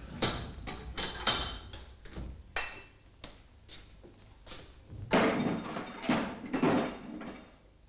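Steel tool handling: a heavy metal assembly press is knocked and clanked free of a bench vise, several sharp metallic clinks with a brief ring, then two or three heavier thuds about five seconds in as it is hung on a sheet-metal tool board.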